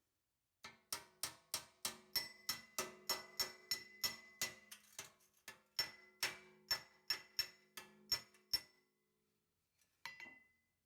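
Hammer blows on a sheet-metal kick panel over an anvil, about three ringing metallic strikes a second for some eight seconds, then one more strike near the end.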